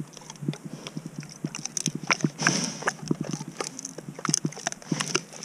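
Pig chewing and rooting at the microphone: irregular crunching and clicking, as if it were eating rock.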